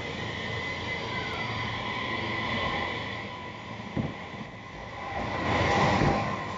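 JR East Series E257 electric limited express train pulling out of the station: a steady electric hum of the train running, a single knock about four seconds in, and the noise swelling near the end as the front cars come past.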